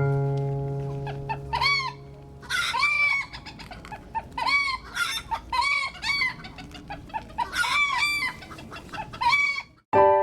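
Chickens calling over and over in short, arched squawks, over quiet background music. The calls cut off abruptly near the end as a new piece of music begins.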